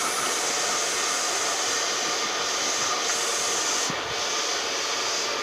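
Handheld hair dryer blowing steadily, an even rushing hiss that dips briefly about four seconds in.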